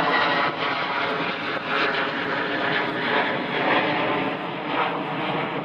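Airplane engines running loud and steady, a dense engine noise with faint steady tones through it.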